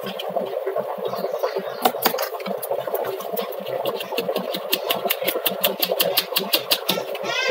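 Rice flour being sifted through a round hand sieve, the sieve tapped and shaken over a steel plate, ending in a fast, even run of light knocks, about eight a second.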